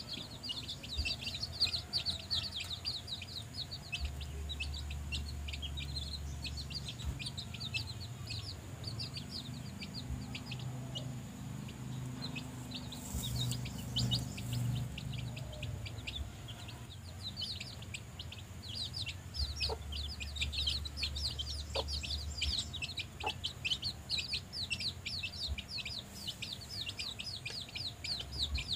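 Young chicks peeping nonstop in quick, thin, high calls, thinning out for a few seconds midway while the mother hen clucks low.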